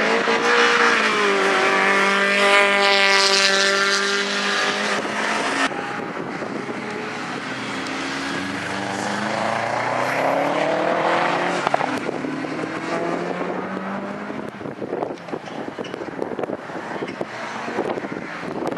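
Rally car engines at high revs. First the MG ZR's Honda B16 1.6-litre four-cylinder holds a steady high note as it comes close, then it cuts off abruptly; then a Subaru Impreza rally car's engine climbs in pitch as it accelerates and drops away about twelve seconds in.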